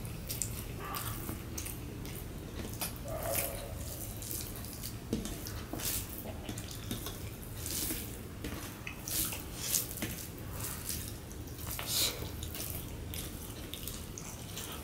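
Hand-eating sounds: fingers mixing and squeezing rice with mashed bhorta on a steel plate, and mouthfuls being eaten, heard as irregular short wet clicks and smacks over a faint low hum.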